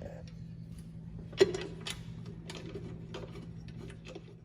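Small metal parts being handled, an Allen wrench against the saw's blade screw and flange: irregular light metallic clicks and taps, with one sharper click about a second and a half in, over a steady low hum.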